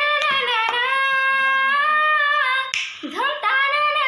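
A girl singing a song unaccompanied, holding long notes that slide up and down in pitch, with a quick breath a little under three seconds in.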